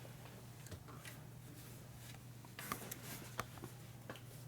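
Scattered light clicks and taps of a small screw and hand tools being handled, over a steady low hum.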